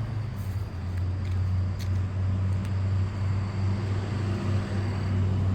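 Steady low engine hum, with a few faint clicks over it.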